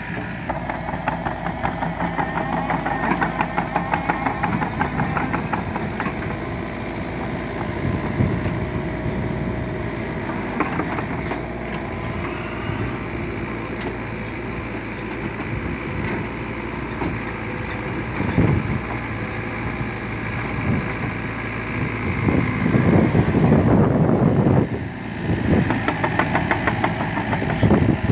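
LiuGong mini excavator's diesel engine running with a fast, even pulsing, swelling louder several times as it works under load, most strongly about 23 to 25 seconds in.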